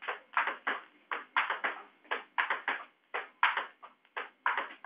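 Table tennis ball clicking sharply off bat and table in a quick, even run, about three hits a second.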